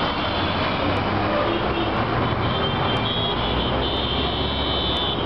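Congested city street traffic: a steady rumble of idling and creeping bus and car engines under road noise. A horn sounds for about a second near the end.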